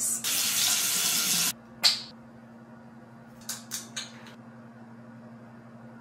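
Bathroom sink tap running for just over a second, then shut off, followed by a few faint short clicks and splashes, with a steady low hum underneath.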